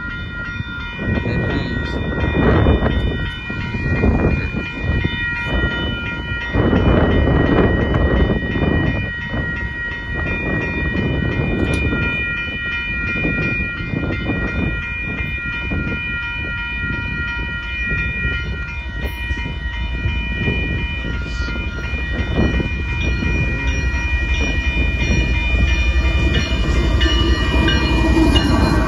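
Railroad grade-crossing warning bell ringing continuously while the crossing signals are active, over the low rumble of an approaching Union Pacific diesel freight train that grows louder near the end.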